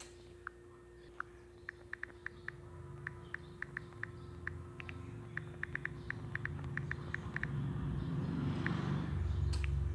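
A string of short, light clicks at uneven spacing, several a second, over a low rumble that swells and is loudest near the end, with a faint steady hum underneath.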